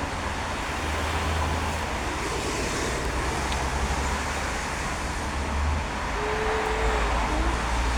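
Steady road traffic noise with a low rumble that rises and falls, and a short faint tone about six seconds in.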